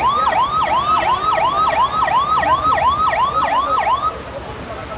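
Electronic siren sounding a fast yelp, its pitch sweeping down and up about three times a second, which stops about four seconds in.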